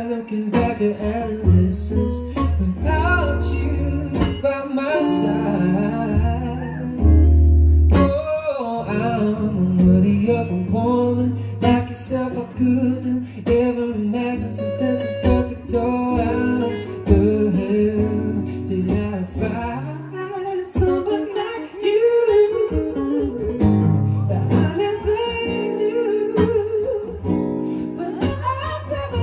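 A man singing live, accompanying himself on a strummed acoustic guitar.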